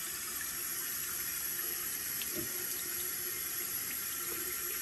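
Bathroom sink faucet running steadily into the basin.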